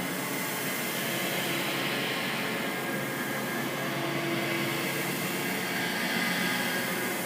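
Steady rushing, droning noise with a few faint humming tones, holding an even level throughout: a dark ambient horror drone sound effect.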